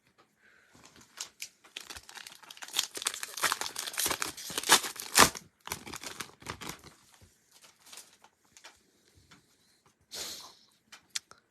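Trading card pack wrapper being torn open and crinkled: a few seconds of dense crackling and tearing, thinning to scattered crinkles and ticks.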